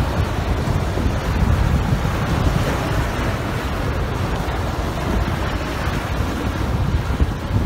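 Strong wind buffeting the microphone, a steady low rumble, over surf breaking on the beach.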